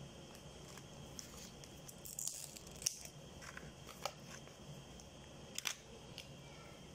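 Faint crinkling of a plastic takeaway container and its plastic wrap as food is picked out of it, with a few short sharp clicks and crackles.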